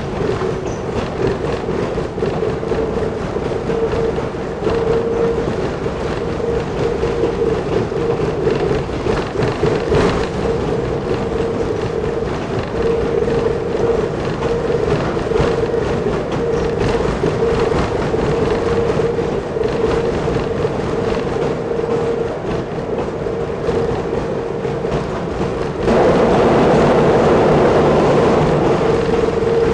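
KiHa 10 rail bus running along jointed track, heard on board: a steady engine drone with wheel and rail noise. About 26 s in the sound swells louder and rougher for about three seconds, then settles back.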